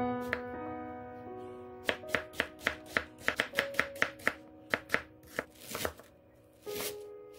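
Chef's knife slicing an onion on a wooden cutting board: a run of quick, sharp strikes starting about two seconds in, around four a second, over soft background music with held notes. Near the end come a few broader cuts as the knife moves on to a bunch of garlic chives.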